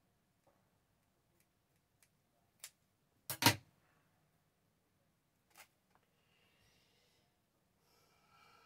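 Light clicks and taps of craft materials being handled on a table, with one louder double knock about three and a half seconds in and faint rustling near the end.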